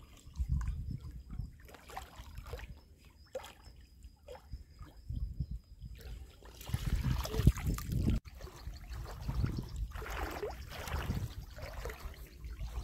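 Water splashing and sloshing as a hooked carp thrashes at the surface beside a landing net, with the loudest burst of splashing a little past halfway.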